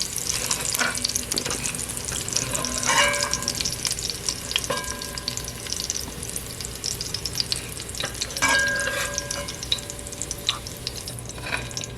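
Seasoning sizzling in hot vegetable oil in a pot while it is scooped out with a metal spoon. The spoon scrapes and knocks against the pot, which rings briefly a few times.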